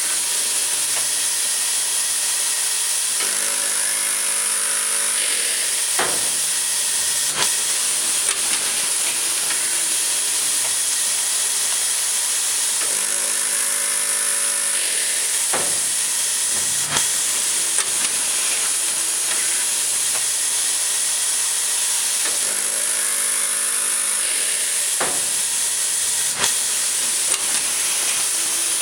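Electroimpact E6000 automated fastening machine cycling through lockbolt installations over a steady air-like hiss. Three times, about nine seconds apart, a pitched motor hum runs for about two seconds and is followed by two sharp knocks about a second and a half apart.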